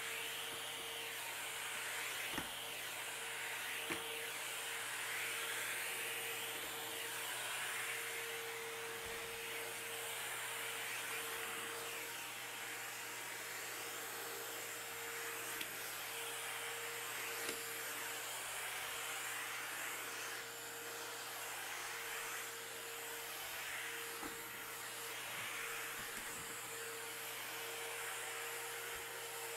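Shark VacMop running steadily with a constant motor hum, picking up spilled cat litter from a hard floor, with a few light knocks along the way.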